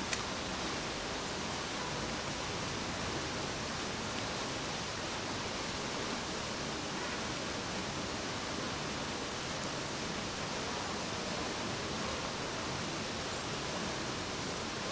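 Steady, even rushing noise of outdoor ambience, like running water, with no splashes or other single sounds standing out.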